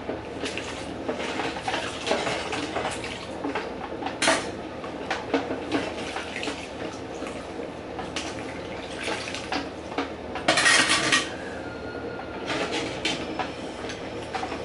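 Dishes and cutlery being handled at a kitchen counter: a run of irregular clinks, knocks and scrapes, with a louder burst of noise lasting under a second about ten and a half seconds in.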